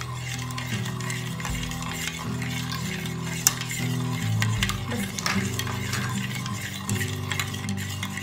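Steel spoon stirring melted ghee and ice cubes in a steel bowl, with frequent light clinks and scrapes against the bowl and one sharper clink about three and a half seconds in; the ghee is being stirred continuously as it begins to thicken into butter. Soft background music with sustained low notes plays underneath.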